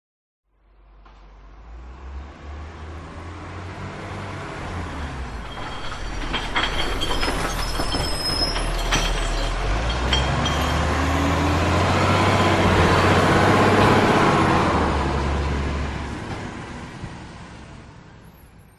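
Heavy diesel truck driving past: its engine rumble and road noise swell slowly for more than ten seconds, peak, then fade away, with a few faint clicks and high squeals along the way.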